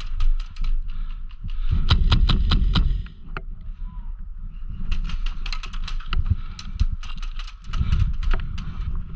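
Airsoft guns firing in runs of sharp clicks and pops, several shots a second, mixed with heavy low thuds of footsteps and movement.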